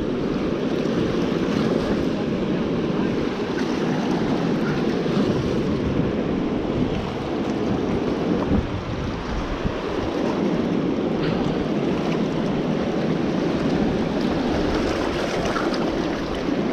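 High, fast river water rushing and churning below a dam's open spillway gates: a steady, even rush of water.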